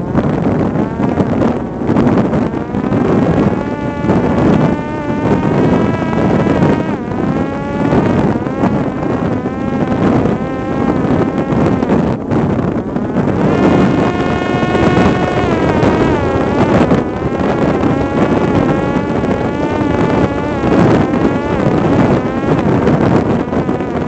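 Parrot Disco fixed-wing drone's electric pusher motor and propeller whining, the pitch gliding up and down with throttle and holding steady for a couple of seconds past the middle, under heavy wind buffeting on the microphone.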